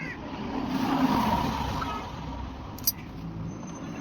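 A motor vehicle passing by, its noise swelling to a peak about a second in and then fading, with a sharp click near the end.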